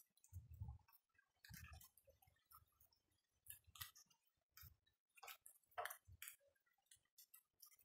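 Faint rain dripping: scattered, irregular drips and taps with no steady rhythm, and a couple of soft low thumps in the first two seconds.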